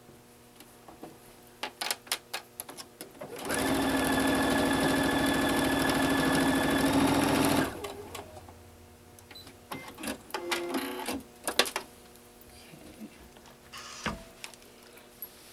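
Domestic electric sewing machine running steadily for about four seconds, stitching a seam in quilt-block fabric, starting a few seconds in and stopping abruptly. A scatter of sharp clicks comes before and after the run.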